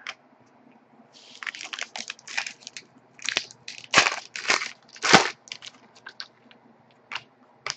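2011-12 Panini Pinnacle hockey trading cards being handled and flicked through: a crinkling rustle starting about a second in, then a run of sharp snaps and clicks, the loudest about five seconds in.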